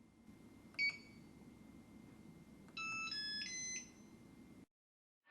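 Yale Real Living push-button deadbolt keypad: one short electronic beep from a key press, then about two seconds later a quick series of stepped electronic tones, rising overall, as the lock confirms the code entry.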